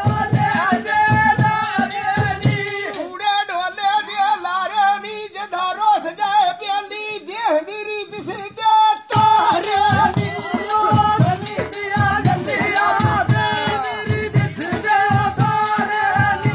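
Punjabi mahiya folk song: a solo voice singing a wavering, ornamented melody over a drum beat with some rattling percussion. The drum drops out about three seconds in while the voice carries on alone, and comes back about nine seconds in.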